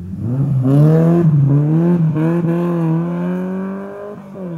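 Rally car's engine accelerating hard away. The revs climb and drop at two quick upshifts, about one and two seconds in, then the engine pulls steadily through the next gear and fades near the end.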